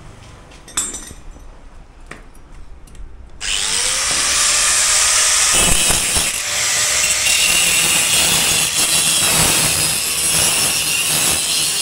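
Power tool grinding metal, likely cutting the sheet for the carrier. It starts suddenly and loudly about three and a half seconds in and runs steadily, after a few quieter handling clicks.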